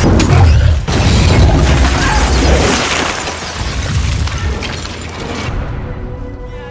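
Movie soundtrack of an explosion: a boom with shattering debris over score music. The blast noise thins out near the end as the music carries on.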